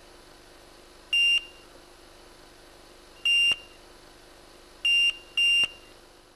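Four short electronic beeps, all at the same high pitch: one about a second in, one a little after three seconds, and two in quick succession around five seconds. A faint steady hum sits underneath.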